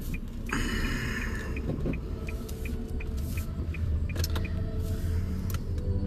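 Car cabin sound: a steady low engine and road rumble, with a rustling scrape about half a second in as a seatbelt is pulled across, and a quick regular ticking, about three ticks a second.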